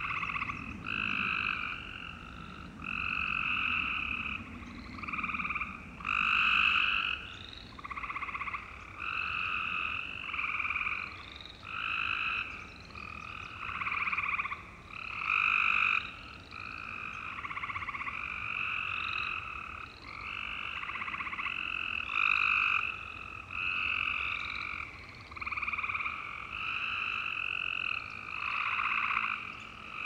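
Western chorus frogs and gray treefrogs calling in a pond chorus: trilled calls of about a second each, overlapping and following one another with hardly a break.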